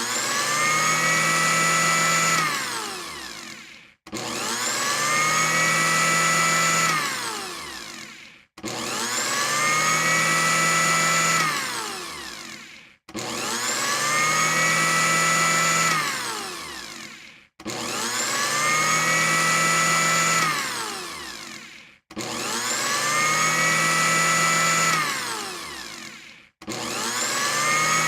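Electric blender motor pureeing, run in repeated pulses: each time it spins up with a rising whine, runs steadily for about two seconds, then winds down. The cycle repeats about every four and a half seconds, six times over.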